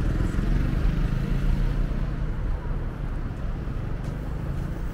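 City street traffic: a motor vehicle's low engine and road noise, slowly fading.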